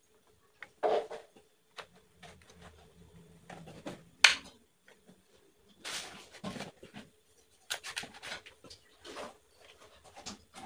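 Kitchen knife cutting through a salted peda fish (fermented mackerel) on a wooden cutting board: irregular scrapes and knocks, with one sharp knock about four seconds in.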